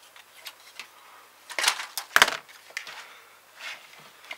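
Hard plastic model-kit parts and side cutters handled on a cutting mat: small light clicks, a short scrape about a second and a half in, then one sharp snap of the sprue cutters just after two seconds.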